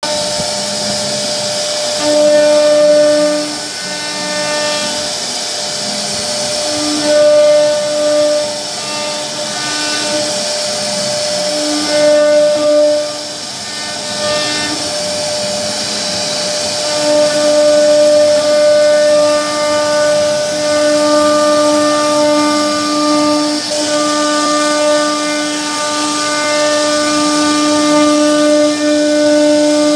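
CNC router spindle whining at a steady high pitch, with a hiss, as its bit carves a wooden door panel. The whine swells louder in stretches of a second or two, then holds almost unbroken through the second half.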